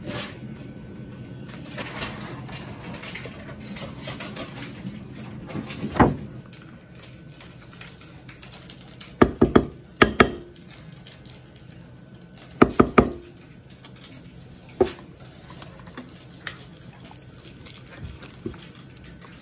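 Wooden spoon knocking on the rim of a ceramic mixing bowl while yogurt is scooped and scraped off onto meat: a single tap, then two quick clusters of several sharp knocks, then a few lone taps, over a faint steady hum.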